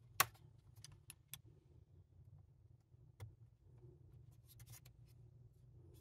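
Scattered light clicks and taps of a metal precision screwdriver bit poking at a clip through the edge vent slots of an ASUS ROG Zephyrus M GM501 laptop chassis, the sharpest click about a quarter-second in, over a faint low hum.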